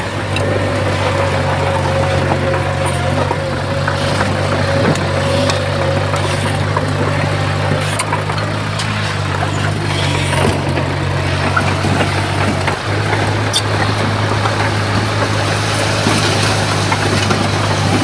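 Komatsu bulldozer's diesel engine running at a steady, even speed, with a few faint clicks over it.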